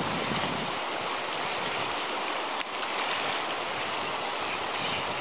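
Shallow, fast river running over a stony bed: a steady rushing hiss of water, with one brief click about halfway through.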